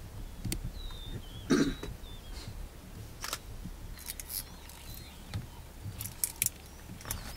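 Cheetah feeding at a kill: a short cough-like huff about one and a half seconds in, with sharp clicks and crunches scattered through, over faint bird chirps and a low steady rumble.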